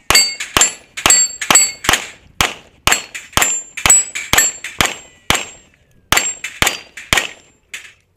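Pistol shots fired in a steady rapid string, about two a second with a short pause past the middle. Many shots are followed by the high metallic ring of hit steel targets.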